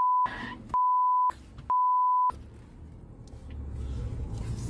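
A steady 1 kHz censor bleep tone in three stretches over the first two seconds or so, with short snatches of other sound between them. It stops, and the low road rumble of a car driving along a highway comes in and grows louder toward the end.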